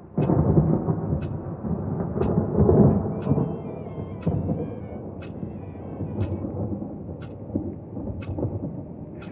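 A deep rumble sets in suddenly, swells for about three seconds and then slowly dies down. Under it, a clock ticks evenly about once a second.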